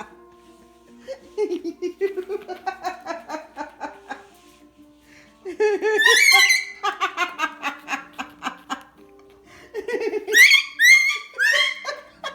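A woman laughing hard and uncontrollably in rapid pulsing bursts. The laughter climbs to loud high-pitched peaks about six seconds in and again near the end, over quiet background music with held notes.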